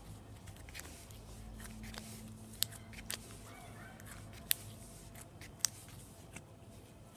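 Hands working a soft, stretchy slime against a tabletop, with a handful of small sharp clicks and pops from the slime scattered through.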